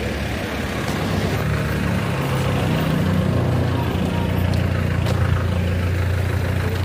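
A motor vehicle's engine running close by, a steady low hum that grows a little louder about a second in.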